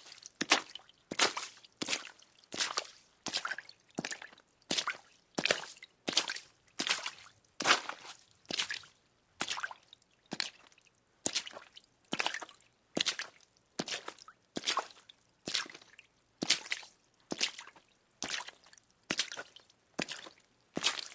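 Footsteps splashing through shallow puddles at a steady walking pace, a little more than one step a second, each step a short wet splash.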